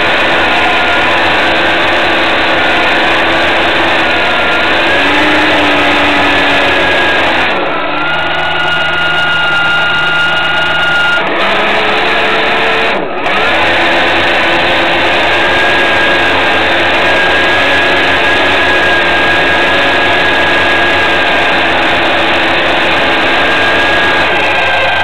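A boat's motor running continuously with a steady whine, its pitch changing a few times, with a brief dip about 13 seconds in.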